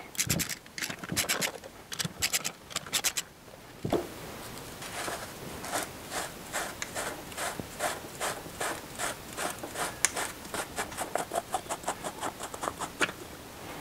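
A socket ratchet clicks in short runs as the gearbox top-cover bolts are undone. This is followed by a long run of steady clicks, about three a second, that quickens near the end.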